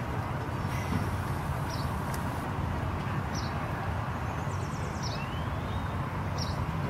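Steady outdoor background rumble with a small bird giving short high chirps about every second and a half, and one rising whistled note about five seconds in.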